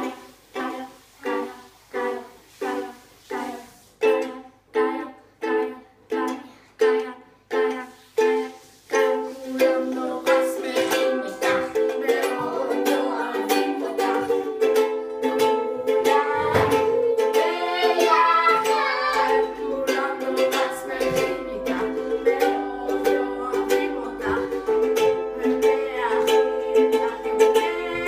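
Ukulele strummed by hand. For the first nine seconds it plays separate chords about twice a second, each ringing briefly. Then it switches to faster, continuous strumming, with a boy singing over it.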